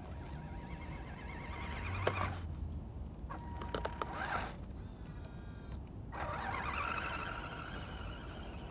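Electric motor and gears of an Axial SCX10 radio-controlled Jeep whining in three bursts of throttle as it drives and plows through snow, with a sharp click about two seconds in.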